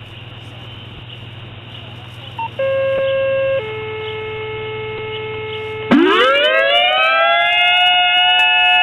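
Tornado-warning alert sequence. A low hum with hiss gives way to two held electronic tones, a higher one for about a second and then a lower one for about two seconds. About six seconds in, a civil defense siren winds up from a low pitch to a loud steady wail.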